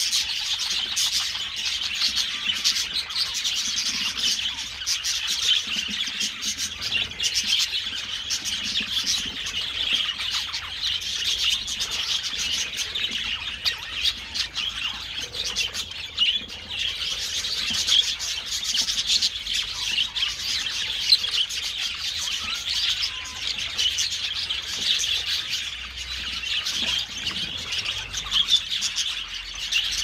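A flock of small aviary birds chirping and twittering continuously, many quick overlapping chirps with no pause.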